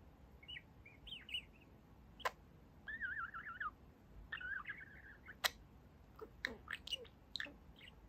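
Budgerigar chirping and warbling in short, wavering phrases. Two sharp clicks stand out, about two seconds in and again midway.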